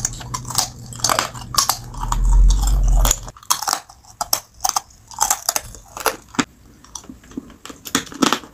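Hard ribbon candy being bitten and crunched between the teeth: a rapid, irregular run of sharp cracks and crunches. A low rumble runs under it from about two to three seconds in.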